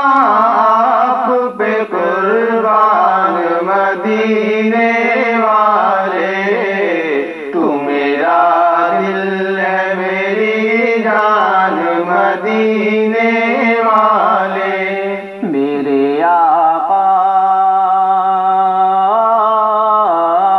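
A group of men singing a naat, a devotional song praising the Prophet Muhammad, in long, wavering held notes over a steady low drone, played back through a television set.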